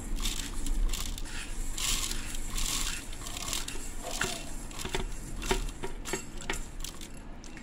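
Dry coriander seeds poured into a stainless-steel mixer-grinder jar, pattering and rattling against the metal. The dense patter thins after about three seconds into a few separate ticks of single seeds.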